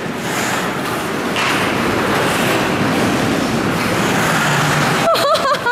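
Ice hockey rink noise: skates scraping and gliding on the ice as a steady hiss. About five seconds in come a few sharp clacks, likely sticks or the puck, and a brief high-pitched shout.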